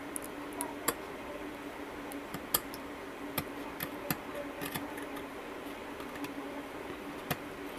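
Irregular small clicks and scratches of a knife blade scraping through a copper track on a printed circuit board, over a faint steady hum.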